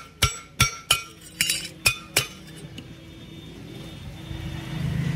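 Thin welded steel strip clinking sharply against a steel plate as it is handled, about six ringing metallic knocks in the first two seconds or so. Near the end, the low rumble of a vehicle engine grows louder.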